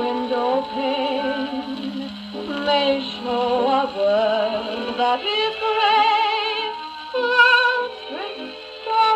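1922 HMV acoustic gramophone playing a Decca 78 rpm shellac record through its soundbox: music with a wavering vibrato melody, thin and with little bass.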